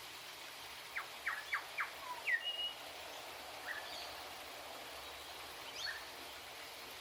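Grey shrike-thrush calling: a quick run of four short falling notes about a second in, then a curved whistled slur and a short high note, with a few scattered single notes later, over a steady background hiss.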